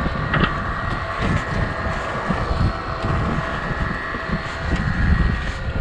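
Wind buffeting the microphone on a small boat at sea, with a faint steady hum underneath and an occasional light click.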